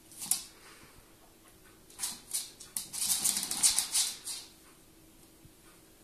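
A Staffordshire bull terrier and a cat scuffling in play: a short scuffle just after the start, then a longer burst of rapid scrabbling and clicking from about two seconds in, peaking near the middle and dying away by four and a half seconds.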